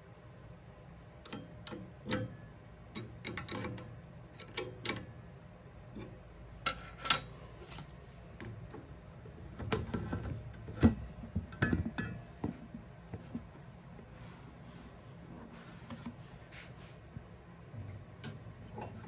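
Irregular metallic clinks, clicks and knocks of small bolts, a spanner and the steel riving knife being handled while the riving knife on a table saw is changed, the sharpest knocks about seven and eleven seconds in.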